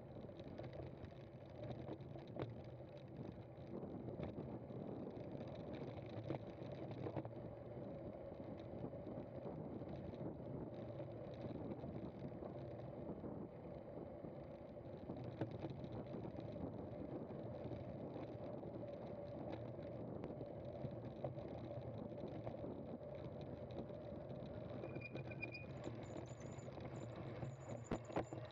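Cyclocross bike being ridden over rough ground: a steady rumble and rattle of tyres and frame with scattered knocks, and a few brief high squeaks near the end.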